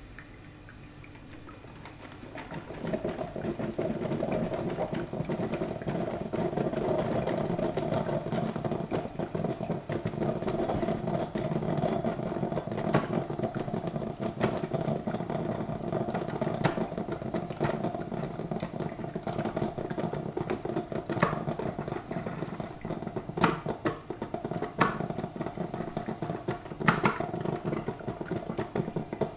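Drip filter coffee machine gurgling and sputtering as it pushes hot water through, starting about two seconds in after a quiet moment. From about halfway on, sharp pops and spits come through the gurgle.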